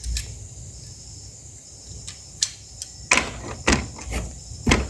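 Plastic toy train track pieces being handled and fitted together: a handful of sharp, irregular clicks and knocks.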